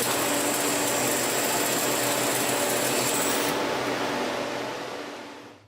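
CNC lathe machining noise: a steady hiss with a low hum, and a thin high whine that stops a little past halfway. It all fades out near the end.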